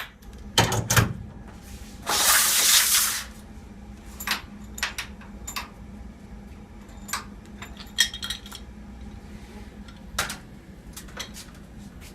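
Metal parts and hand tools clinking and clicking as an air-conditioning compressor is dismantled, with a short burst of loud hissing noise about two seconds in.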